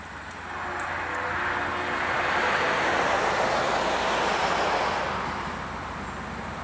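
A road vehicle passing close by: its tyre and road noise swells to a steady rush over about two seconds, holds, then fades away near the end.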